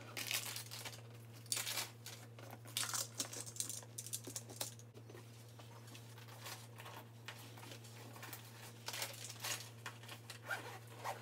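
Rustling and crinkling of clothes, bags and toiletries being handled and packed, in irregular short bursts, over a faint steady low hum.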